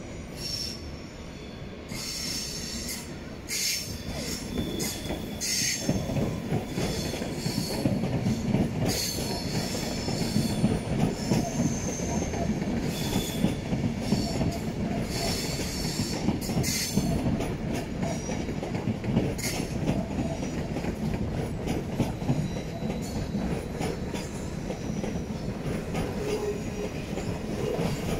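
SBB passenger trains rolling over the pointwork of a busy station approach: a low rumble of wheels on rails that builds about two seconds in and then holds, with clicks and clatter as the wheels cross the switches and repeated high-pitched squealing coming and going.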